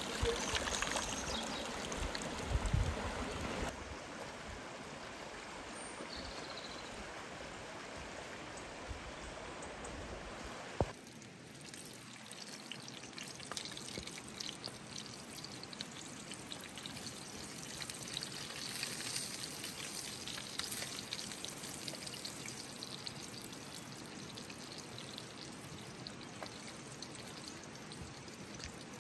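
Water pouring and splashing off a cutting board of greens into a shallow, running stream, with the river flowing steadily. About eleven seconds in it gives way to a quieter crackle and sizzle from fish frying in a pan over the embers of a wood fire.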